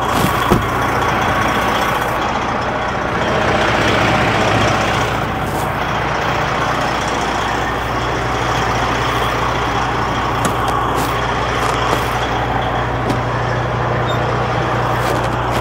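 Heavy-truck diesel engine idling steadily, a constant low hum under a broad rush of noise, with a few small clicks near the start.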